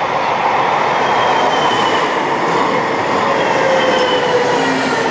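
DÜWAG low-floor tram rolling past close by on a curve, its wheels running on the rails and growing louder as it nears, with a faint thin wheel squeal.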